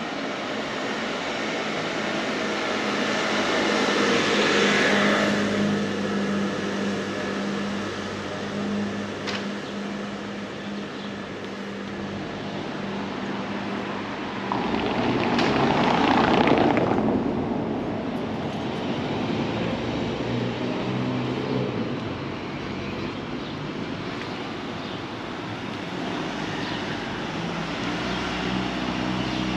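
City street ambience with cars passing on a cobbled street: two louder passes swell up about four seconds in and again around the middle. A steady low hum runs underneath.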